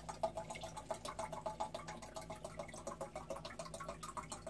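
Water glugging and gurgling in quick, irregular blips as it is poured from one container into another.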